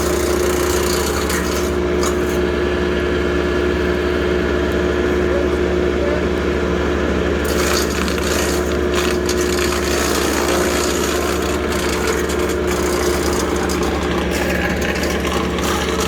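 Tractor engine running steadily, with a steady hum. A higher rushing noise joins about seven seconds in.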